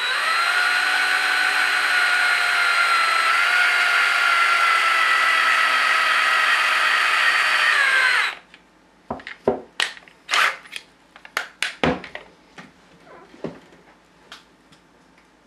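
Cordless drill running steadily, driving a screw into an untapped hole in an RC truck's differential case; its whine sags just before it stops about eight seconds in. A scatter of light clicks and knocks follows.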